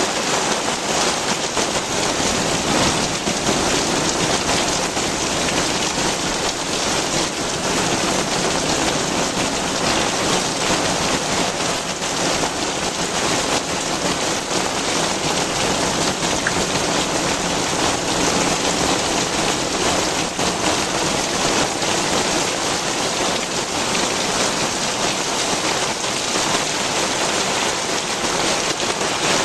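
Heavy rain pouring down and pattering densely on the ground and surfaces in a steady, loud hiss.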